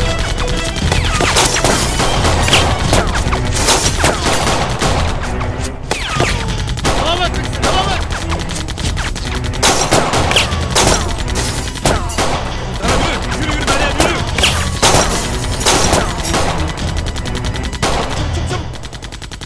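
Sustained automatic gunfire from a heavy machine gun mounted on a pickup truck, fired in long rapid bursts with only brief breaks.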